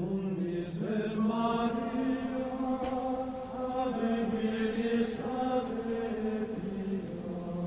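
Slow chanting on long, held low notes, a monk-style chant drone that shifts pitch only now and then.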